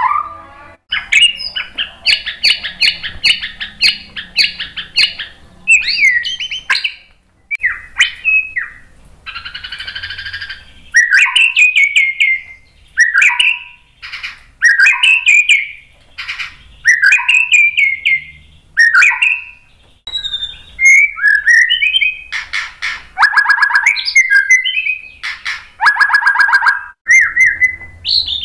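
White-rumped shama singing a varied song: phrases of sweeping whistled notes broken by fast rattling trills, with short pauses between phrases.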